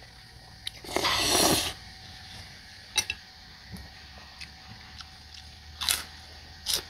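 Noodles being slurped up in one loud burst about a second in, followed by a few short clicks of biting and chewing.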